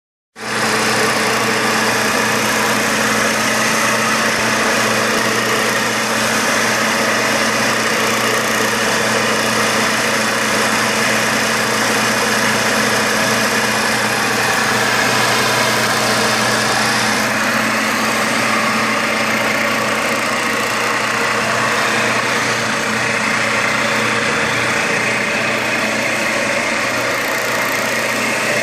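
Square-pad electric floor machine grinding a travertine floor to take down lippage at a wall edge: its motor runs steadily with a constant hum and the rasp of the abrasive pad on stone. About two-thirds of the way through, the high hiss turns a little duller.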